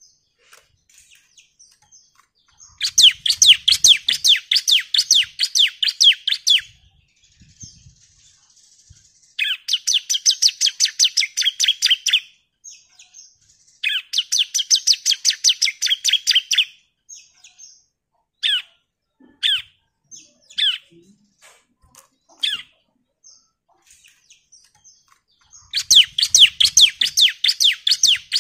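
Bar-winged prinia (ciblek) singing its rapid-fire 'nembak' song: long, fast trills of sharp, high notes in four bouts of about three seconds each. Between the third and last trill it gives a few single chirps.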